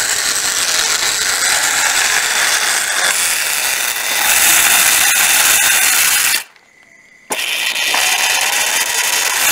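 National EZ6811 cordless hammer drill running free with the trigger held, the bit not pressed against anything so it spins without hammering. It stops abruptly about six and a half seconds in and starts again less than a second later.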